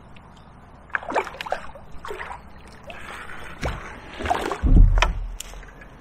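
A hooked chub splashing at the surface close to the bank as it is played on a float rod, in irregular splashes, with a heavy low thump about five seconds in.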